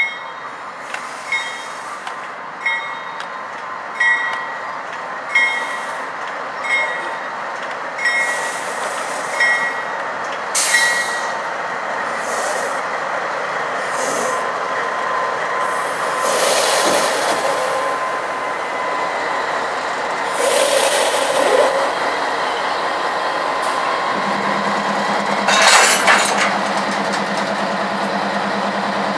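Freight train rolling slowly on the rails, its wheels knocking over a rail joint with a squealing ring about every second and a half. After that a steady high wheel squeal carries on, with a few bursts of hiss. A low engine hum comes in near the end.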